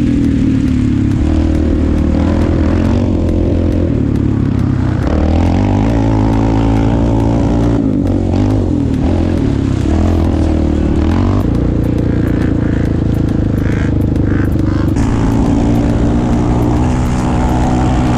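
Sport quad's engine running hard under load, heard from on board. Its pitch steps up and down several times with throttle and gear changes.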